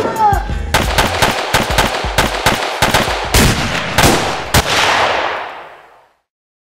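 Firecrackers going off in a rapid string, many sharp bangs a second like a machine gun, then fading out near the end.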